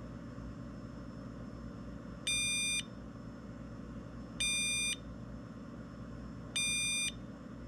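Ultra Power UP-S6AC 1S LiPo charger beeping three times, each beep about half a second long and about two seconds apart, to signal that a battery has finished charging. The beep is subtle, not obnoxious.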